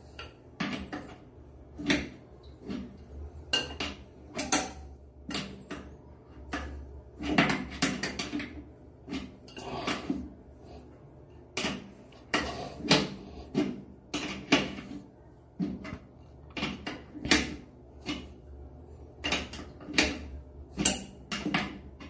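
A wrench clicking and scraping on the coupling nut of a braided flexible hose as the nut is tightened onto a toilet tank's inlet: irregular short metallic clicks, about one or two a second, with a few longer scrapes.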